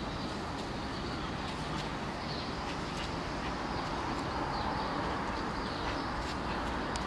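Steady outdoor background noise with a low rumble like distant traffic, and a few faint short high chirps.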